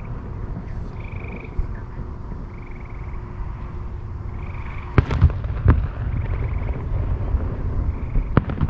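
Distant fireworks shells booming: a cluster of three bangs about five seconds in and two more near the end, over a steady low rumble. Between them a frog calls in short trills, one every second or so.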